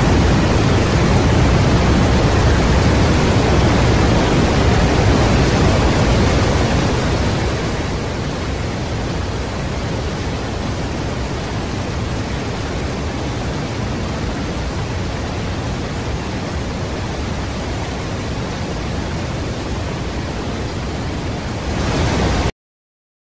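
Water rushing over a small rocky cascade: a loud, steady rush of white water that eases slightly about a third of the way in and cuts off abruptly near the end.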